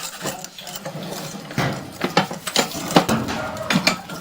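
A run of irregular ratchet-like clicks and clatters from equipment being handled.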